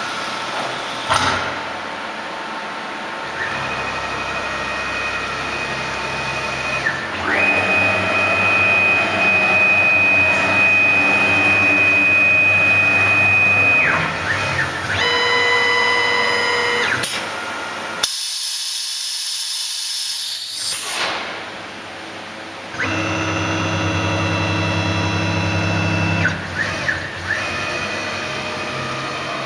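SK-1210-DF CNC router running: a steady high spindle whine that steps up and down in pitch several times, with the whine of the axis motors moving the gantry. Past the middle comes a loud hiss lasting about three seconds.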